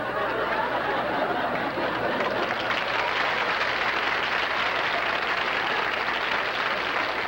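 Studio audience applauding: a steady, dense clatter of many hands that grows fuller about two and a half seconds in.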